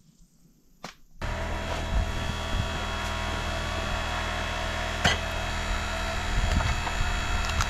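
Electric log splitter's motor starting about a second in and running with a steady hum, with a few sharp knocks over it as a log is set on the machine.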